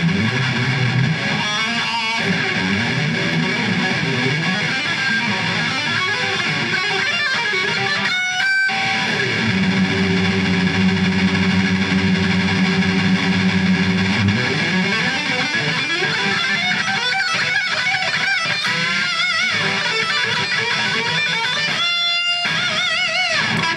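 Electric guitar playing a metal solo, with a long held low chord around the middle and wavering high notes near the end.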